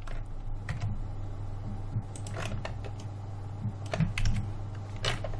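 Irregular clicks of a computer keyboard and mouse as the software is worked, over a steady low hum.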